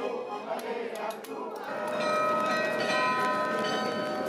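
Crowd chatter, then, a little under two seconds in, the bells of the Munich Rathaus-Glockenspiel start ringing, several bell tones sounding on together.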